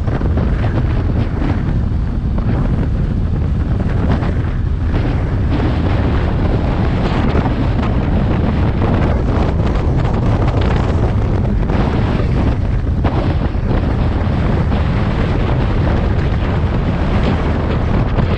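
Steady wind rushing over the microphone of a moving motorcycle, with the bike's engine running underneath.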